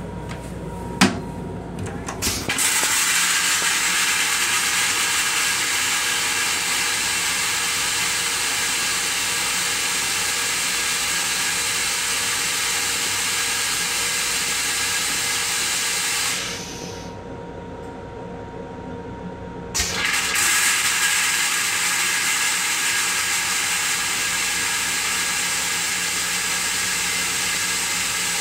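Metro-North M7 railcar toilet flushing: a click about a second in, then a loud, steady hiss that drops away for about three seconds two-thirds of the way through and then starts again.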